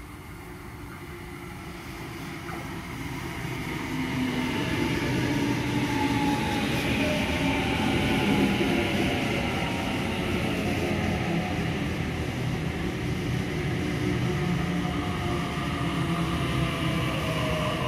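Sydney Trains Tangara double-deck electric train approaching and running past the platform. The sound of wheels on rail grows louder over the first few seconds and then stays steady, with a whine that slowly falls in pitch as the cars go by.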